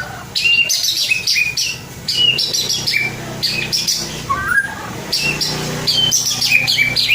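A young white-rumped shama sings a rapid, unbroken run of varied whistled and chattering phrases. A steady low hum sits underneath and grows louder about five seconds in.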